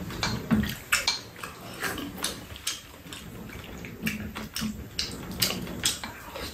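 Eating sounds: slurping and chewing of brothy rice-cake soup, with spoons clicking against bowls in many short, uneven clicks.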